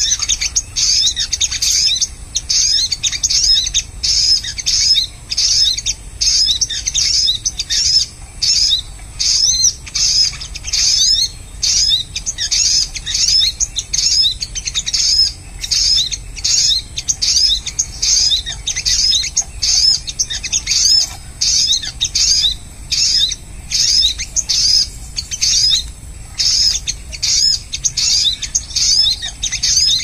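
Bird-trapping lure call played from a speaker: a loud, looped recording of rapid high chirps repeating in short bursts about once a second.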